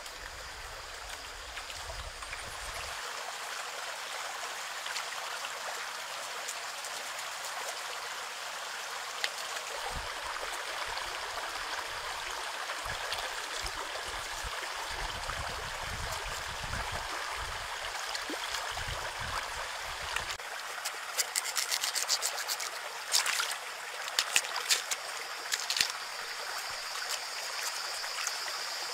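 Shallow stream water flowing and trickling steadily. About two-thirds of the way in comes a short run of sharp clicks and scrapes from food being handled close by.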